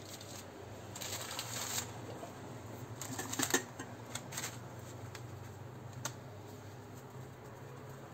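Hands at work with dough: a cotton tea towel rustling as it is spread over a tray of dough balls, and a ball of yeast dough being pressed flat on a silicone mat. There are bursts of rustling about a second in and again around three seconds in, and a single light click about six seconds in. A low steady hum runs underneath.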